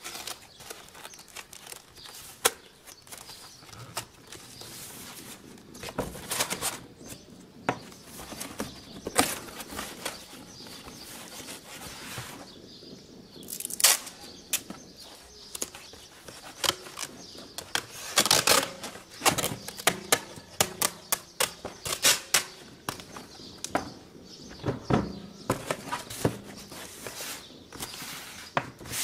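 Cardboard being handled and taped up: irregular rustling, crinkling and sharp ripping sounds of tape pulled off the roll and pressed onto the box.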